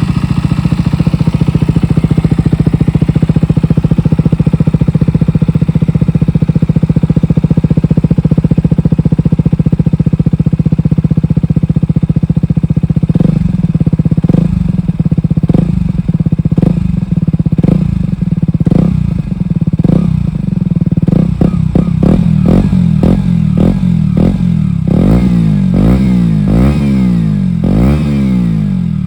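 2017 KTM Duke 125's single-cylinder four-stroke engine through a Dominator GP1 exhaust with no dB killer, idling steadily. From about halfway in, the throttle is blipped in short revs that come faster and climb higher near the end.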